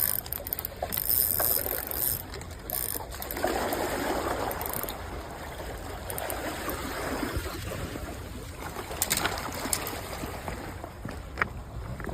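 Fishing reel ratcheting in short bursts for the first few seconds, then water sloshing and splashing at the bank.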